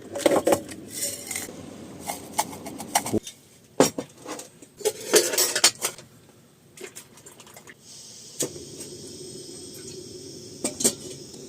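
Dishes and cutlery clinking and knocking together in a series of separate, uneven clatters.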